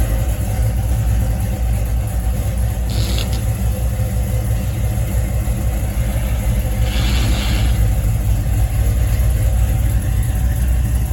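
LS-swapped 5.3-litre V8 in a 1989 box Chevy idling with a steady deep rumble, freshly started and not yet tuned. Two brief hissy noises come about three and seven seconds in.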